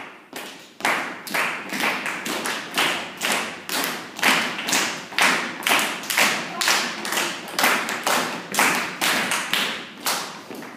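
A group clapping hands together in a steady rhythm, about two to three claps a second, as a body-percussion exercise; the clapping stops near the end.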